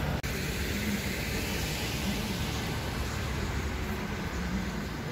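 City street noise: passing traffic with a steady rumble of wind on the microphone.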